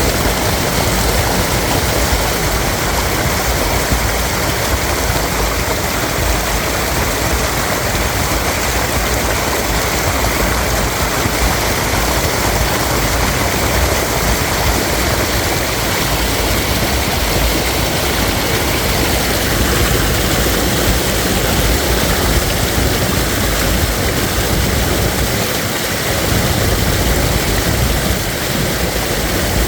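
A brook babbling and rushing steadily over stones, a loud, even wash of water.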